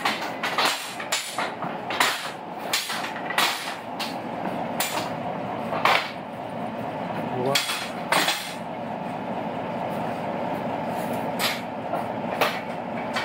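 Levers and catches of a mechanical railway signal box lever frame being worked: an irregular run of sharp metallic clicks and clunks, one or two a second.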